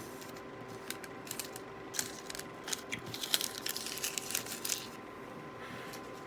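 A stick of Fruit Stripe gum being unwrapped: its paper wrapper crinkles and crackles in a quick run of sharp, uneven clicks from about a second in until near the end, over a faint steady hum.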